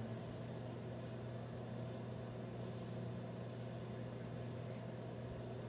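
Over-the-range microwave oven running with a steady low hum while melting butter.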